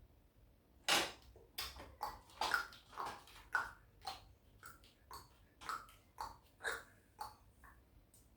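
Hard plastic parts of a Gundam model kit clicking and clacking as they are handled and fitted: a run of about fifteen sharp knocks over some seven seconds, each with a short ring. The first, about a second in, is the loudest.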